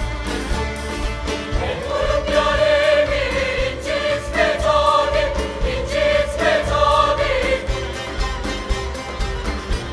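Turkish folk song performed live by a bağlama (saz) ensemble and mixed choir, with a steady drum beat. The choir sings a phrase from about a second and a half in until about two seconds before the end, with instruments alone around it.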